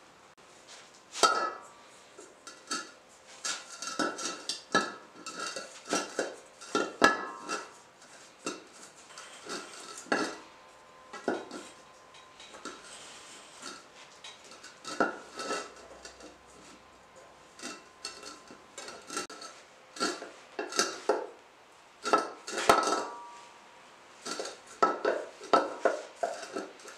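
Irregular clinks, taps and scrapes of a knife and hands on metal as ceramic wool insulation is cut and pressed into a shallow steel dish on a steel stand.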